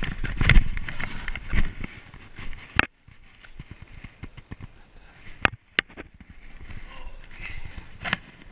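Mountain bike clattering over a rough dirt singletrack: a dense rattle of the frame and chain with tyres crunching on dirt and rocks, ending in one sharp knock about three seconds in. After a sudden cut the rest is much quieter, with two sharp clicks in the middle and faint trail noise.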